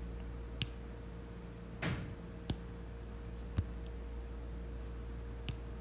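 Steady low electrical hum of the recording, with a few light, sharp clicks spread through it and a brief scratchy rustle about two seconds in.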